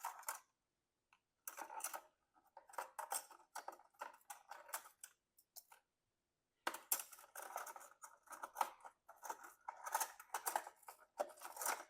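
Someone rummaging through stored items while searching for a RAM stick: many quick rustles and light clicks of handled objects, in two spells with a short quiet gap about halfway.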